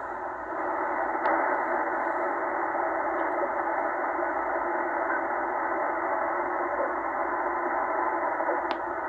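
Shortwave receiver in upper-sideband mode tuned across empty frequencies near 3.35 MHz: a steady band of static hiss through the narrow sideband filter, with no station heard. Two faint ticks, about a second in and near the end.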